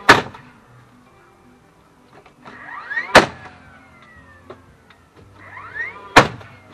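Cordless nailer driving nails into wooden fence boards, three shots about three seconds apart. Each shot is a rising motor whine that ends in a sharp, loud bang, followed by a falling whine as the motor winds down.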